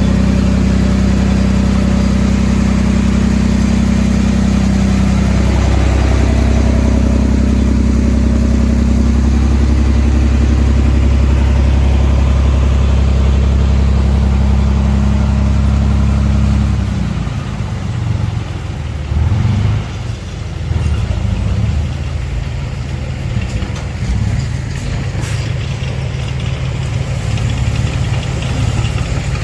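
Small Mitsubishi BD2F bulldozer's diesel engine running hard and steady, then dropping a little past halfway to a lower, uneven note as the load comes off.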